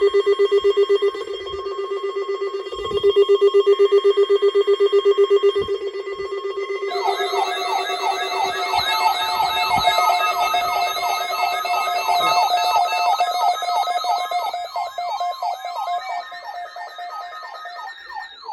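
Several NOAA weather radio receivers sound their alert alarms together after decoding the Required Weekly Test: a loud pulsing beep at first, then from about seven seconds in, warbling siren-like alarm tones join. The sound thins out near the end.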